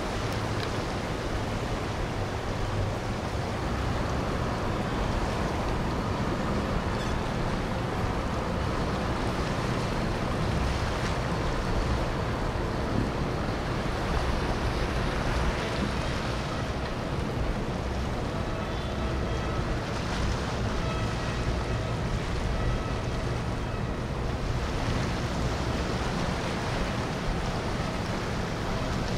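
Boats running on the water: a steady rush of wind and water noise, with faint engine tones coming and going.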